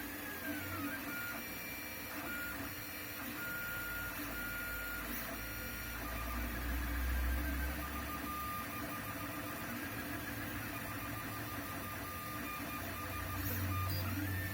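Lulzbot TAZ 6 3D printer's stepper motors whining as the print head moves. The whine holds one pitch, then jumps to another about six seconds in, and warbles up and down at the start and near the end.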